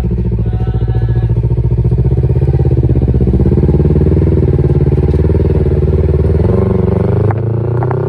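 Kawasaki Ninja 300's 296 cc parallel-twin engine idling through an Akrapovic slip-on exhaust, a loud, steady, evenly pulsing note. The revs lift slightly about six and a half seconds in.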